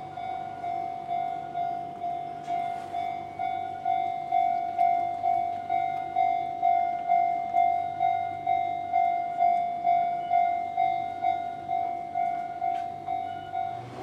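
Enoden railway level-crossing warning bell ringing its steady electronic "kan-kan", a little over two strokes a second: the alarm that a train is approaching the crossing.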